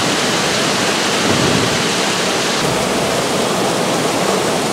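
Heavy rain pouring down, a loud, steady hiss.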